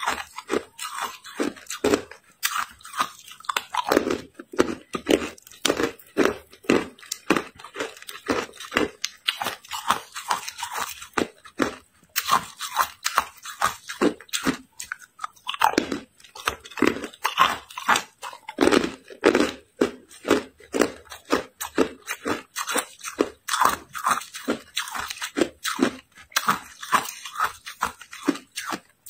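Hard, clear ice cubes bitten and crunched between the teeth: a continuous run of sharp cracks and crunches as the pieces are chewed.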